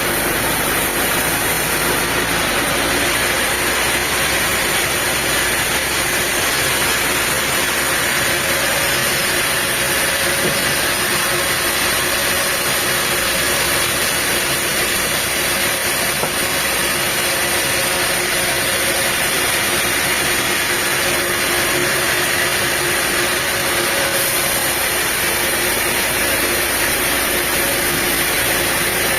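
Sawmill machinery running steadily: an even engine sound with a constant hiss and a faint steady hum.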